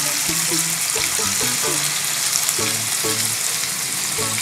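Two marinated chicken breast steaks, freshly laid in, sizzling steadily in hot oil in a kadai over medium flame.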